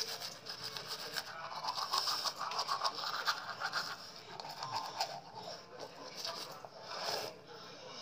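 Manual toothbrush scrubbing teeth through a mouthful of toothpaste foam: a fast, wet scratching, strongest a couple of seconds in.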